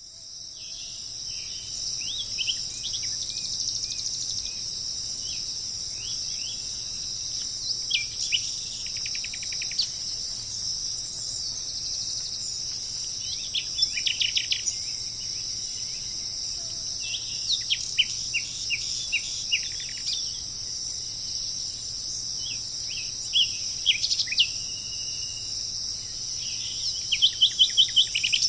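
Birds chirping over a steady high-pitched drone of insects. Short groups of quick, downward-sweeping chirp notes come every few seconds, and a fast, evenly spaced run of chirps sounds near the end.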